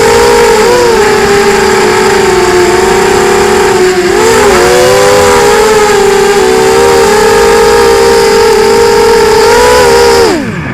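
Lumenier QAV250 racing quadcopter's motors and propellers whining at high speed. The pitch wavers a few times as it manoeuvres, then falls steeply near the end as the motors spool down.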